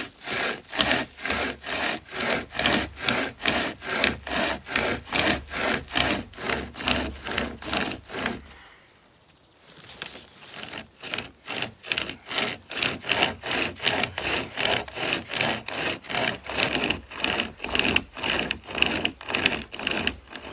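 Hand-powered pocket chainsaw, a chain of cutting teeth wrapped around a dead tree trunk and pulled back and forth, sawing into the wood in fast even strokes about three a second. The sawing stops for a second or so about halfway through, then carries on.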